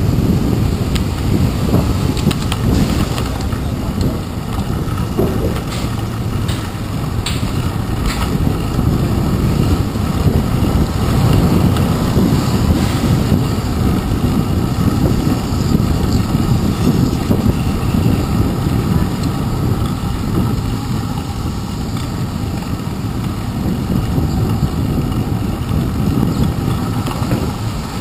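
Steady low rumble of wind and road vibration picked up by a handlebar-mounted GoPro Hero 2 on a moving bicycle, mixed with the noise of car and truck traffic passing close alongside. A few sharp clicks come in the first several seconds.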